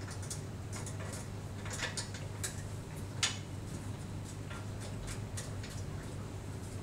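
Scattered light metallic clicks and clinks as the knobs under the tripod head are turned up into the CPC925 telescope's fork-mount base, loudest about three seconds in, over a steady low hum.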